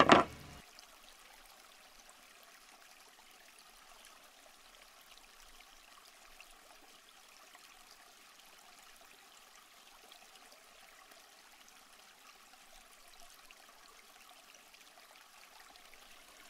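A short, loud knock right at the start, then near silence with a faint steady hiss.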